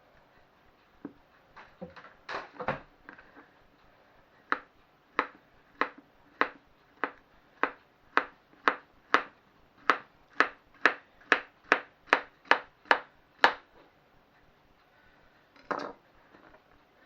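A knife slicing a banana into rounds on a chopping board: a steady run of about eighteen sharp knocks of the blade on the board that gets faster as it goes, after a few lighter handling clicks. One more knock near the end.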